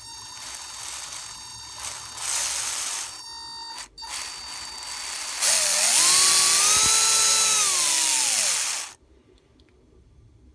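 Small RC electric motor driving LEGO Technic axles and gears, whirring in uneven short runs with plastic gear rattle. About five seconds in it spins up in a louder run, its whine rising in pitch and holding, then winds down and stops.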